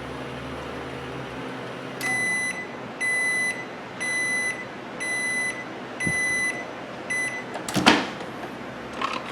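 A Frigidaire microwave oven's steady running hum stops within the first two seconds as its 12-second test cycle ends. It then gives six high beeps about a second apart, the last one short, signalling that the cycle is done. Near the end the door is opened with a loud clack and another click.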